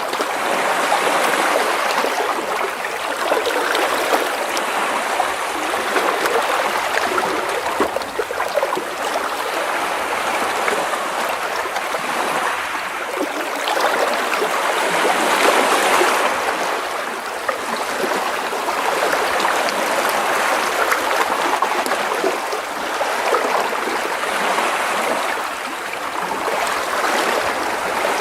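Gentle sea waves splashing and washing against rocks close by, a continuous trickling, gurgling wash of water that swells and eases every few seconds.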